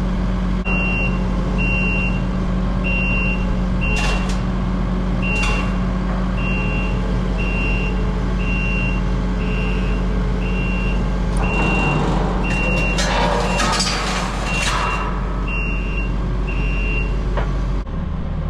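Compact track loader's diesel engine running steadily under load, with its high-pitched backup alarm beeping about every two-thirds of a second and stopping near the end. A louder rushing noise swells and fades in the middle.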